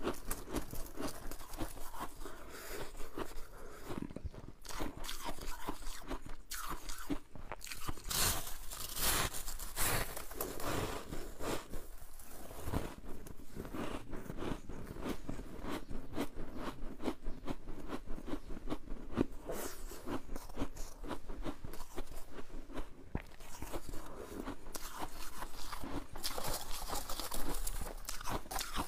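Freezer frost being bitten and chewed, a crisp, crackly crunching of many irregular bites and chews.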